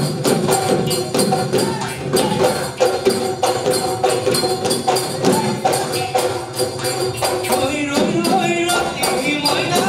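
Bihu folk music: dhol drums and jingling percussion beat a fast, even rhythm under sustained melody notes, and a voice starts singing near the end.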